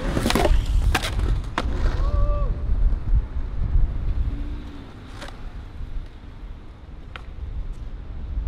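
Skateboard on concrete paving: several sharp clacks of the board in the first two seconds over the low rumble of its wheels rolling, which grows quieter from about three seconds in, with two fainter clicks later.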